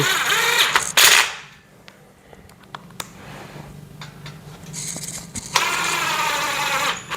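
Power screwdriver driving small screws into a metal shelf frame: the motor runs about a second at the start and again for about a second and a half near the end, with a few light clicks in between.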